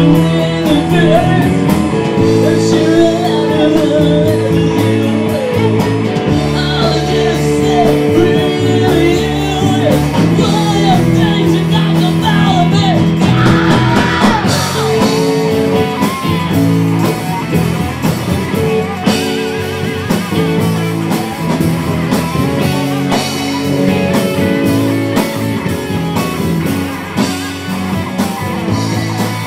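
Rock band playing live: electric guitar over the full band, with singing.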